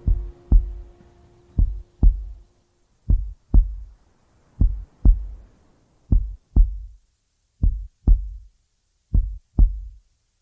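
Slow heartbeat sound effect: paired low thumps, lub-dub, repeating about every second and a half. A held musical tone fades out in the first few seconds.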